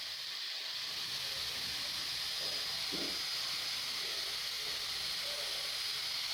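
Steady hiss with a thin, high-pitched whine, unchanging throughout.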